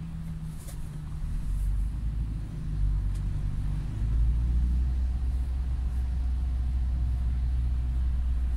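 In-cabin drone of a 2019 UAZ Patriot's ZMZ Pro four-cylinder petrol engine and tyres as the SUV drives in slow traffic. It grows louder about a second and a half in, steps up again about four seconds in, then holds steady.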